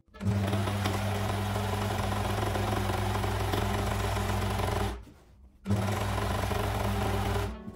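Overlock sewing machine (serger) running, stitching and finishing the raw edge of linen fabric. It starts abruptly and runs steadily, stops for about half a second around five seconds in, then runs again and stops near the end.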